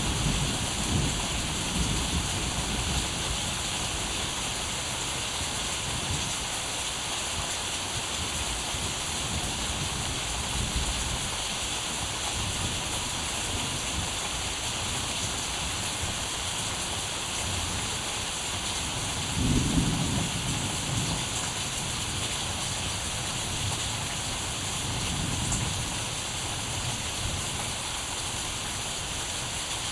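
Steady rain-like hiss, with several short low rumbles, the loudest about two-thirds of the way through.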